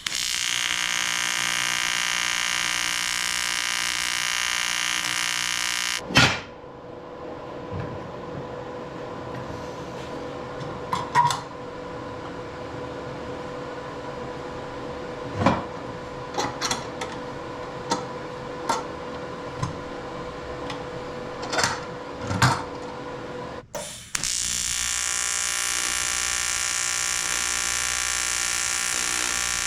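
AC TIG welder arc buzzing steadily while welding aluminum tubing, cutting off abruptly about six seconds in. A quieter stretch with a steady hum and scattered clicks and knocks follows. The arc buzz starts again for the last few seconds.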